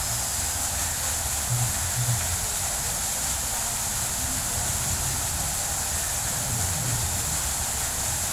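Foaming jet water fountain running: a steady hiss of splashing water over a constant low rumble, with two brief low bumps about a second and a half in.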